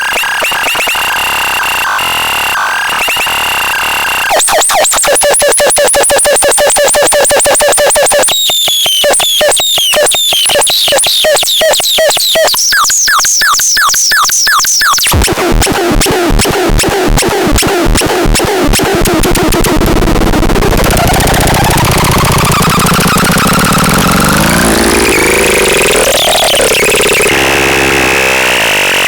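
Electronic synthesizer-like sounds: buzzy held tones, then rapid trains of repeating bleeps and chirps that sweep up in pitch, changing pattern every few seconds, and near the end slow wavering glides up and down.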